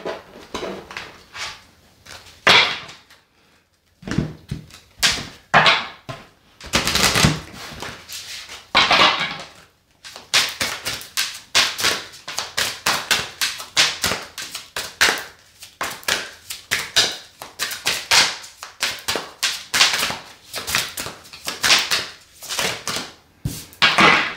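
A deck of cards being shuffled by hand. A few separate rustles come in the first half, then a steady run of quick clicks, several a second.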